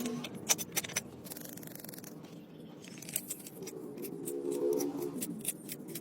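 Irregular sharp clicks and scraping of hand cleaning work on motorcycle engine parts. A low pitched hum comes in about four seconds in.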